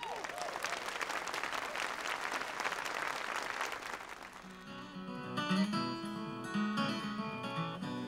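Audience applauding for about four and a half seconds, then an acoustic guitar starts playing, picked and strummed.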